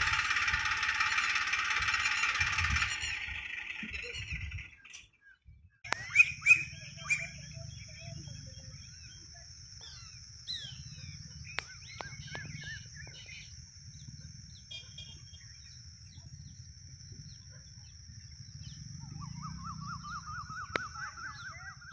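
A tractor engine running for the first few seconds, then fading out. After that, birds chirping over a steady high-pitched drone and a low rumble, with a fast repeating bird trill near the end.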